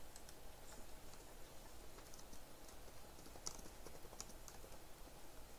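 Typing on a laptop keyboard: faint, irregular key clicks as a short label is typed.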